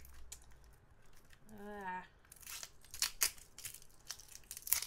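Plastic wrap on a roll of washi tape being crinkled and torn open by hand. The crackling starts a little over two seconds in, with a few sharper snaps, the loudest near the end.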